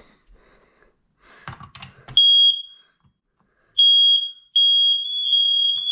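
Household smoke alarm's sounder going off under test with a shrill, high-pitched tone. It gives two short beeps about a second and a half apart, then a longer tone of about a second and a half. The alarm is working.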